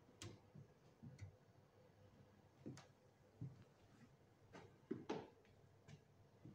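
Near silence: quiet room tone with scattered faint clicks and soft knocks at irregular spacing, a little louder about five seconds in.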